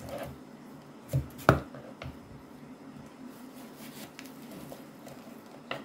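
Kitchen knife cutting through thin pork chops on a wooden cutting board, the blade knocking on the board a few times, loudest about a second and a half in.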